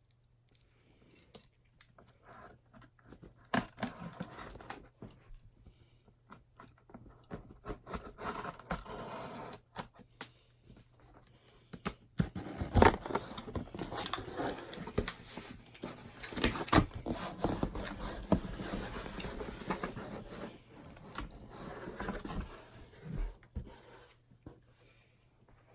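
Packaging being handled and opened: irregular tearing, scraping and rustling with sharp clicks and knocks, busier and louder in the second half.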